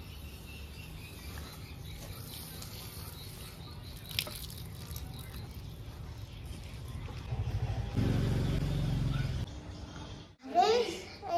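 Water from a plastic watering can pattering onto garden soil, with birds chirping and a steady low outdoor rumble. The rumble swells for about a second and a half near the end.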